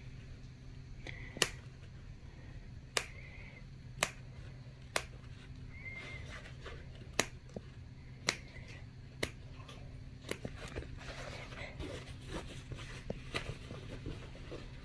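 Scissors snipping fabric close to a stitched seam to trim off the excess, making single crisp clicks at irregular intervals, roughly one a second.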